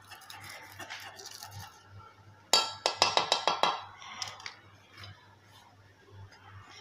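A metal kitchen knife scraping and then clinking several times in quick succession against a stainless-steel pan, with a bright metallic ring.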